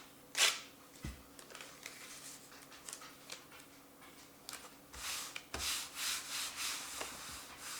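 Irregular rubbing and scraping noises, denser in the second half, with a couple of dull knocks.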